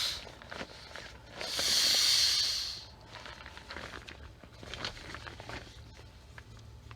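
Air hissing out of an inflatable camping pillow's opened valve as it is squeezed to deflate it, in one loud burst of about a second and a half. Then the thin TPU fabric crinkles and rustles as the flattened pillow is folded.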